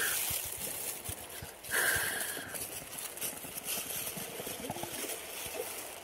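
Plastic bag lining a fishing cooler rustling and crinkling as gloved hands handle it, with a louder rustle about two seconds in and small clicks.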